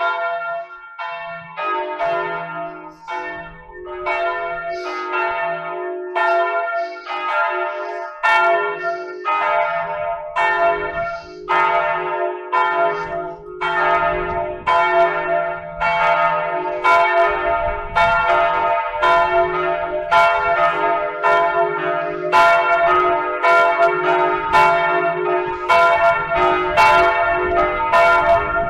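Church bells ringing a continuous peal: several bells of different pitch struck about twice a second, each strike ringing on into the next.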